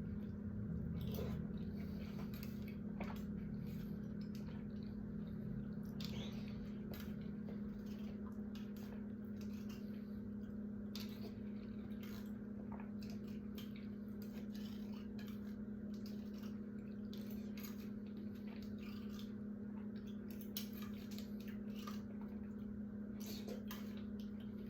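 Chewing and lip-smacking while eating mandarin orange segments: scattered short wet clicks throughout, over a steady low hum.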